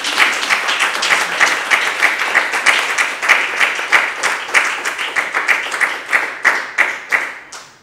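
Audience applauding, many hands clapping in a dense patter that thins out to a few claps and dies away near the end.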